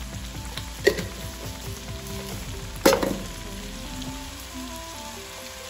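Chicken pasta frying and sizzling in a pan as it is stirred, with two sharp knocks, about a second in and again near three seconds.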